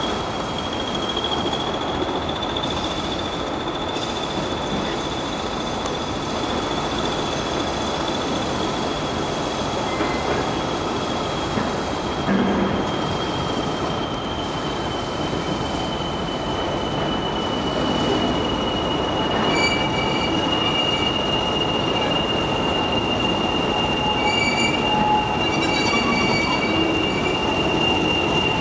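Class 20 diesel-electric locomotive approaching slowly, its engine running with a steady high whistle that slowly falls in pitch over the dense running noise.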